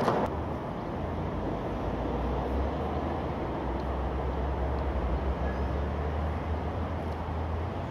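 Steady, even rumble of distant road traffic, with a low drone underneath.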